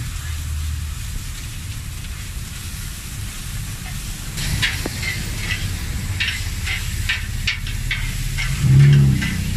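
A knife chopping and scraping meat on a flat steel griddle, a quick run of sharp knocks from about halfway through, with meat sizzling and a low rumble of traffic underneath. Near the end a short low hum briefly rises over it, the loudest sound.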